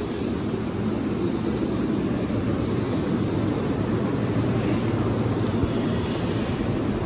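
Hanshin Railway 'Jet Car' commuter train pulling into a station platform and running slowly past close by, a steady low noise of motors and wheels on the rails.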